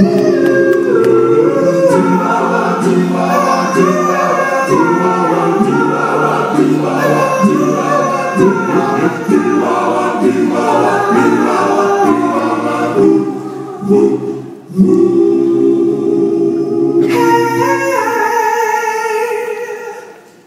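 Doo-wop vocal group singing in harmony, a lead voice over backing voices. A short break comes about two-thirds through, followed by a long held closing chord that fades out near the end.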